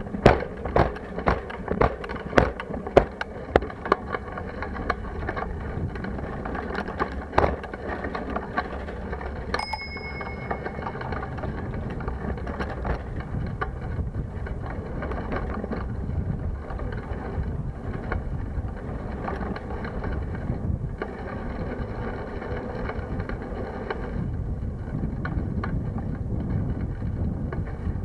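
Bicycle ride heard from a handlebar-mounted camera: sharp rattling knocks about twice a second for the first few seconds, then a steady low rumble of tyres and wind on the microphone. A bicycle bell dings once about ten seconds in.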